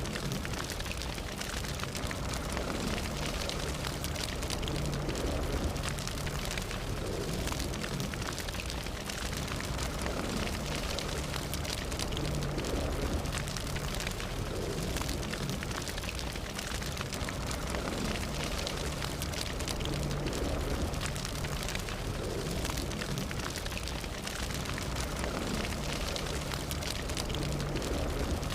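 Fire burning steadily, with dense crackling and many small pops over a low, even rush.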